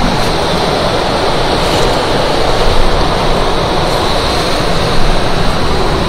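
Mountain stream water rushing over rocks nearby, a steady loud rush of water.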